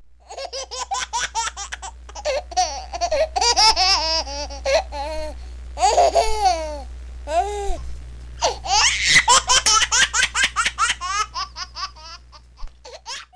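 A grown man giggling in a high-pitched, baby-like voice while being tickled: quick runs of short laughs broken by brief pauses for breath.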